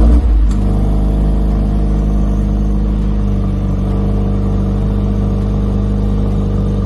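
Performance car engine heard through its quad-tip exhaust, starting with a loud flare in the first half second and then settling into a steady idle.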